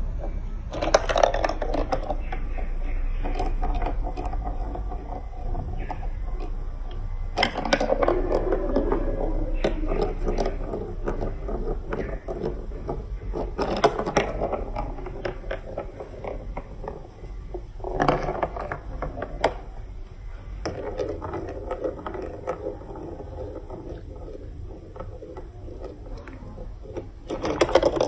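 Marbles clattering and rolling down a plastic building-block marble run. The sound comes in five bursts of sharp clicks and clacks, each trailing off into a steady rolling rattle.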